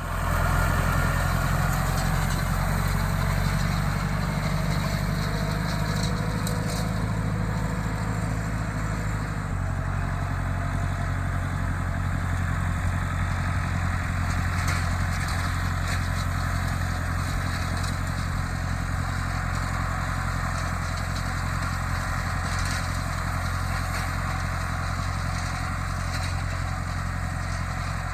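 Tractor engine running steadily, its note changing about nine seconds in.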